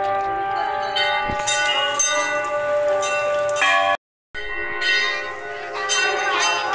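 Brass temple bells rung repeatedly, several tones ringing on and overlapping, with fresh strikes now and then. The sound cuts out for a moment about four seconds in, then the bells ring on.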